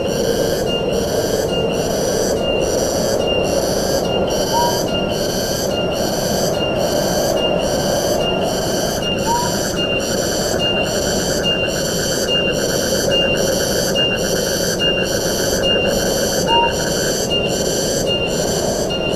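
Tropical forest ambience: a steady rush of wind with a high, rhythmic pulsing insect call repeating somewhat under twice a second. A short rising call sounds four times, about every five seconds.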